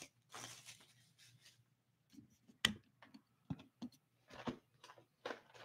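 Faint, scattered taps, scrapes and rustles of a cardboard hockey card box being handled and turned in the hands.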